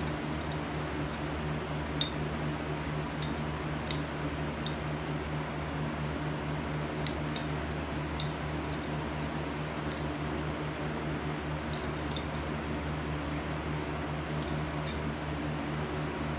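Goodyear electric air compressor running steadily with a constant hum, with scattered light metallic clicks from its adapter fittings being handled.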